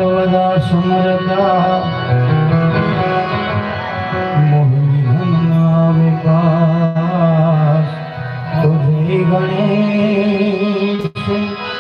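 Live Gujarati bhajan: a male voice singing an ornamented, wavering melody over sustained harmonium chords, with hand-drum accompaniment. The sound drops out for an instant near the end.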